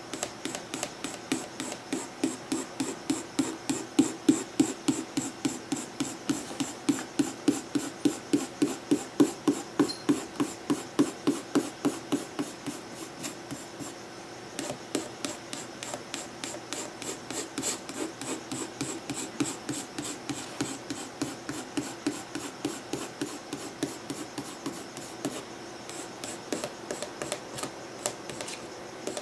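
Coloured pencil shading on sketchbook paper in quick, even back-and-forth strokes, a scratchy rhythm. The strokes are louder at first, stop briefly about halfway, then carry on more softly.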